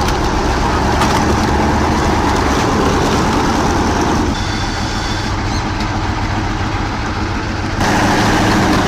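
Heavy truck engine running steadily. Its deep low end drops away about four seconds in and comes back near the end.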